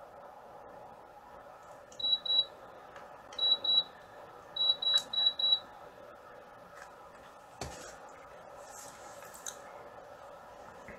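Short high-pitched electronic beeps from a small device, in three quick groups: two, two, then four. A single sharp click follows a couple of seconds later over a steady room hum.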